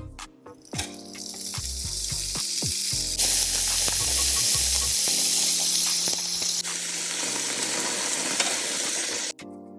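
Food frying, with a loud steady sizzle that builds up over the first few seconds and stops abruptly near the end.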